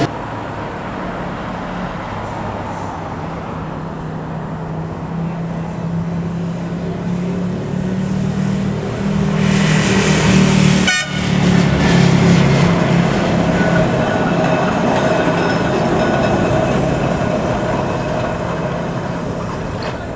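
Vintage Blackpool tram running, its motors and gearing giving a steady low hum. About halfway through there is a brief high hiss or squeal, then a sudden break in the sound.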